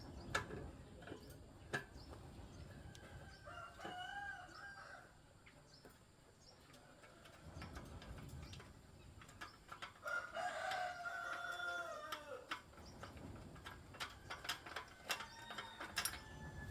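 A rooster crowing twice, several seconds apart, the second crow longer and louder. Scattered light clicks and taps between the crows.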